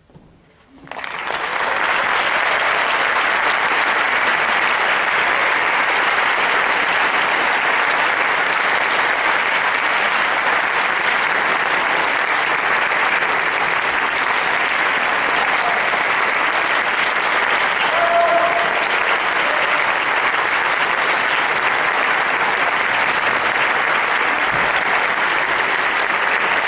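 Concert hall audience applauding: after a second of near silence the clapping swells quickly, then holds steady and loud.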